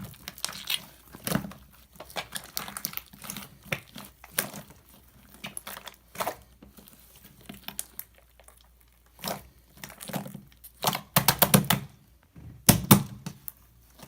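Slime being squeezed and poked by hand, giving irregular sticky clicks and pops in clusters with short pauses between.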